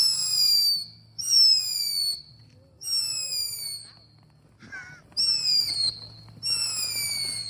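Whistling firework giving off a series of high, shrill whistles, five in all, each about a second long and falling slightly in pitch, coming about every second and a half with a short gap near the middle.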